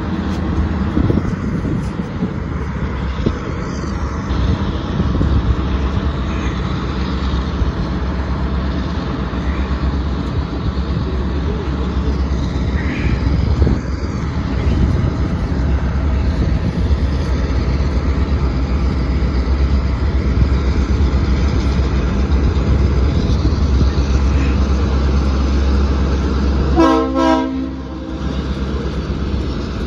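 Norfolk Southern GP38-2 diesel locomotive, a 16-cylinder EMD two-stroke, hauling a local freight train past with a steady low engine rumble. A short horn toot sounds about 27 seconds in.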